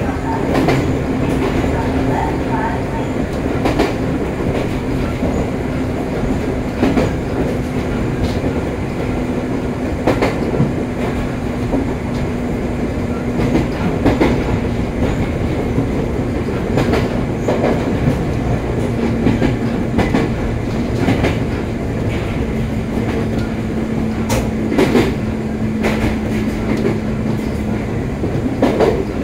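Electric multiple-unit train heard from inside a passenger car while running: a steady low motor hum over the rumble of the wheels, with the wheels clicking over rail joints every one to three seconds.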